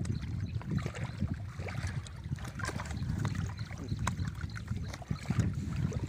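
A hooked fish splashing at the water's surface as it is drawn in by hand and lifted out near the end, over a low rumble of wind on the microphone.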